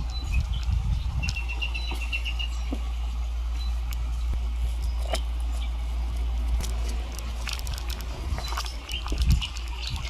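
Recorded birdsong from a nature sound-effects track playing through a small speaker: a short rapid chirping trill about a second in, then scattered high chirps and clicks. A steady low hum runs underneath.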